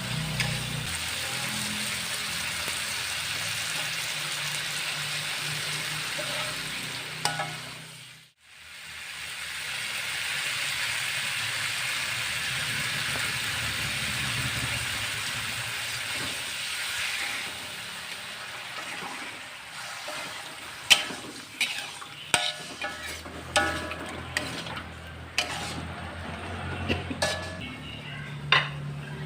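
Food sizzling as it fries in a pan, a steady hiss that dies away and comes back about eight seconds in. From about twenty seconds in come sharp clinks and knocks of utensils against cookware, some of them ringing briefly.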